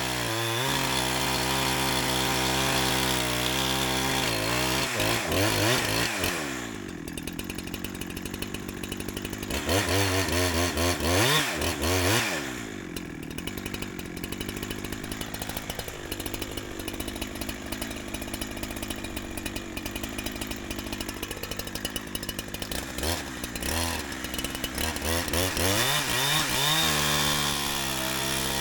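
Holzfforma 372XP two-stroke chainsaw, tuned rich while still being broken in, running at full throttle. It drops to a choppy idle about six seconds in, revs briefly around ten seconds, idles again, and climbs back to high revs near the end.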